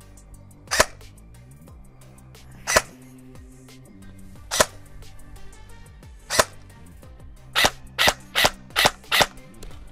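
Double Eagle AK-style airsoft electric gun firing single shots on semi-auto as its trigger sensitivity is tested. Four shots come about two seconds apart, then five quicker shots, about three a second, near the end.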